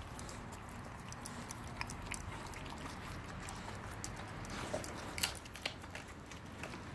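Renascence Bulldogge puppy chewing a raw turkey carcass: irregular wet crunches and clicks of bone and cartilage, with a louder crunch a little past five seconds in.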